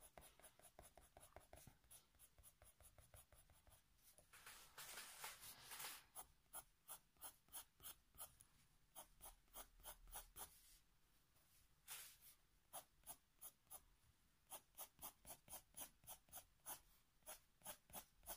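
Faint scratching of a Faber-Castell Polychromos coloured pencil on paper, shading in quick short hatching strokes about three a second. About five seconds in there is a longer continuous scribble.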